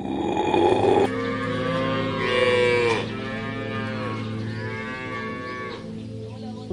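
A cow mooing twice in long calls that fall in pitch, the first opening with a breathy rush, over steady background music.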